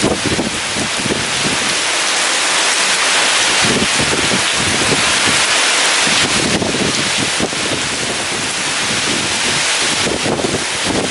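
Heavy rain pouring steadily with strong gusting wind, a low blustery rumble rising and falling under the hiss of the rain.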